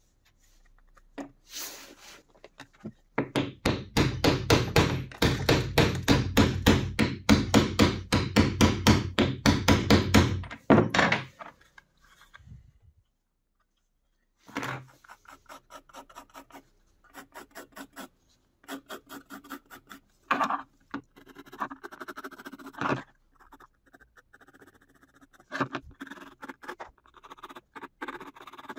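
Small hammer striking metal eyelets through a Kydex sheath on a wooden bench, setting and flattening them. A fast run of sharp strikes, about four a second, goes on for some eight seconds, followed by lighter, scattered taps.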